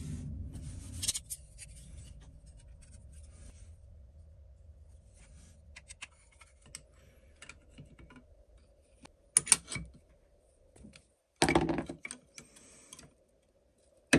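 A cloth rubbing oil over the steel iron and chip breaker of a Record No. 7 jointer plane, then small metal clicks and clinks as the blade assembly is handled and seated in the cast-iron plane body, with two sharper metal knocks, one about nine seconds in and one about two seconds later.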